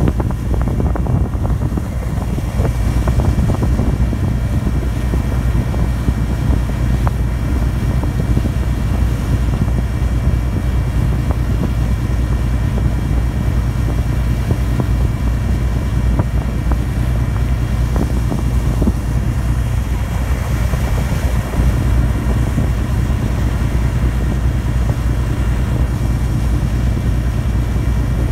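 Ferry's diesel engine running steadily under way, heard aboard: a deep, constant drone with a steady hiss over it.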